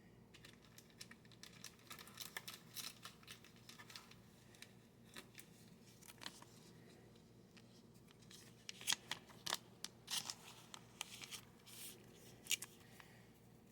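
Thin plastic penny sleeves crinkling and scraping as trading cards are slid into them, a run of faint short rustles with a louder cluster about nine to thirteen seconds in.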